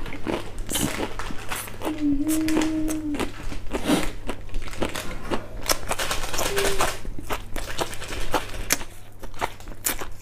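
Foil snack packet crinkling and close-up chewing of raw leafy herbs, a dense run of crackly clicks and rustles, with a short hummed 'mmm' about two seconds in and another brief one past the middle.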